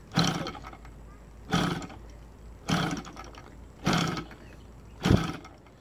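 OS Sirius 7 FR7-420 seven-cylinder radial engine, converted to gasoline, being flipped over by hand at the propeller five times, about once every second and a bit. Each flip makes a short burst as the engine turns through compression, and it never catches because the CDI ignition is switched off.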